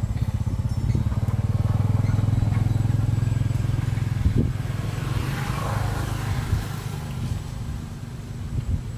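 Low, steady hum of a vehicle engine, loudest in the first half and then fading, with a brief swell of rushing noise about five seconds in.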